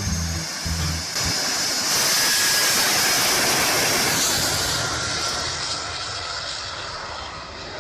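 Jet dragster's jet engine at full thrust with the afterburner lit, launching and running down the drag strip. It is a loud, dense rush, loudest a couple of seconds in, then slowly fading as the car pulls away.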